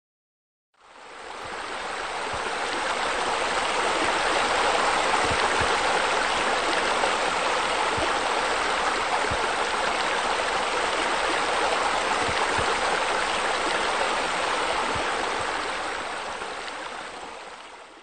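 Steady rush of falling and splashing water, like a waterfall or spillway, fading in about a second in and fading out at the end.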